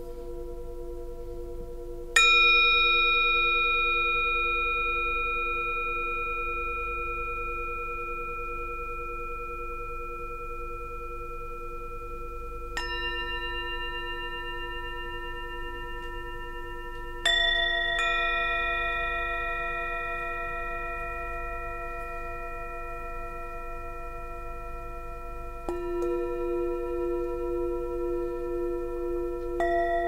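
Full moon singing bowls struck with a mallet about six times, each strike leaving several overlapping ringing tones that fade slowly. The loudest strikes come about two seconds in and just past halfway. A low hum with a slow pulsing wobble runs under the strikes.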